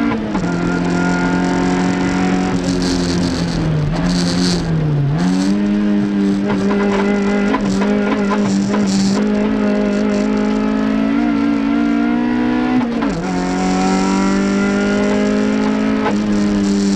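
Toyota MR2 race car's four-cylinder engine running hard at high revs, with upshifts just after the start and about 13 seconds in and two brief dips in revs around four to five seconds in. Short spells of tyre squeal come and go.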